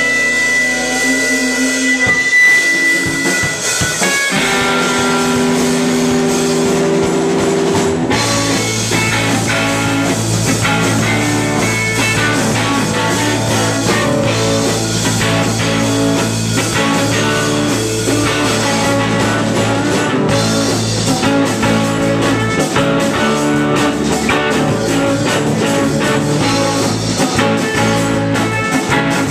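Live indie rock band at full volume: electric guitar, bass guitar and drum kit. One song ends about two seconds in and the next starts with sustained guitar notes, the drums and bass coming in with the full band about eight seconds in.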